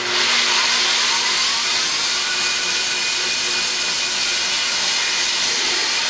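Homemade bandsaw sawmill running on its electric motor, the freshly sharpened blade cutting through a log: a loud, steady rushing hiss with a low hum underneath.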